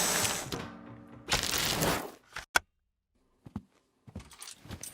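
Advert background music fading out, with a short swell about a second in, then a single sharp click or knock about two and a half seconds in, the loudest moment, followed by a brief near-silent gap and a few faint clicks.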